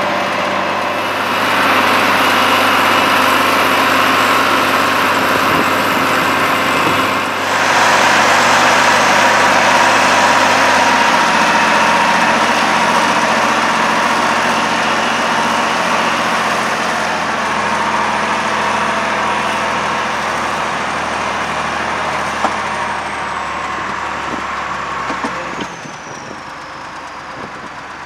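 Schlüter 1500 TVL tractor's diesel engine running steadily under heavy load while it drives a PTO-driven spading machine that digs and loosens the soil about 60 cm deep. The sound turns noticeably quieter for the last couple of seconds.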